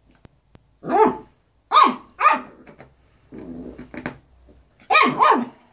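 Wire-haired fox terrier barking: five short, sharp barks, two in quick succession near the start and a quick pair near the end, with a longer, lower-pitched vocalisation in between.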